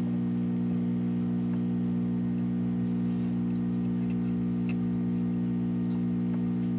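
Steady electrical hum, a stack of low tones that does not change, with a few faint ticks.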